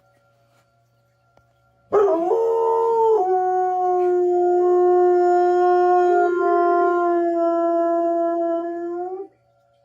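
A dog howling: one long howl of about seven seconds, starting about two seconds in, wavering at first, then held steady and rising slightly just before it stops.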